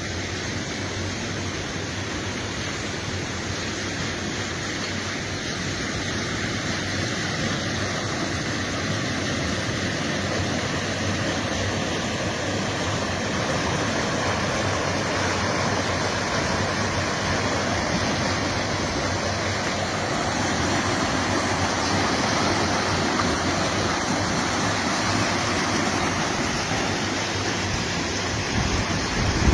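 Fast-flowing river water rushing through a lock: a steady, loud rush that grows a little louder over the first half.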